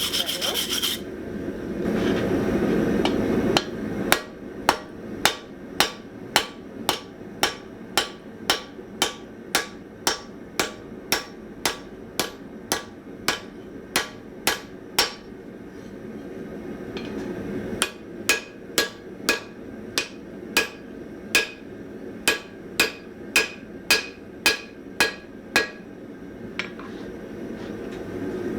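Hand hammer forging a chamfer into the steel jaw of anvil shears on an anvil. Even blows come about two a second, each with a bright anvil ring, in two runs with a pause of a few seconds between them. A steady rushing noise sits under the start and the end.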